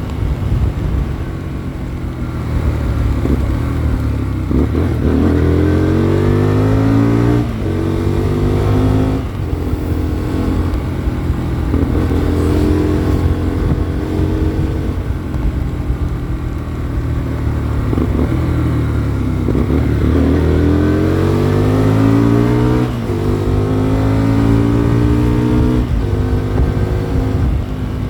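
Hyosung Comet GT250 motorcycle's V-twin engine accelerating, its pitch climbing and then dropping sharply at each gear change, several times over. Wind buffets the microphone.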